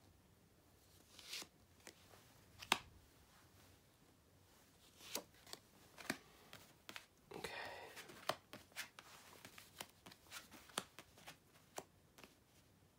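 Tarot cards being pulled from a fanned-out deck, laid down on a cloth and turned over: faint, scattered clicks and taps of card stock with a couple of brief soft slides.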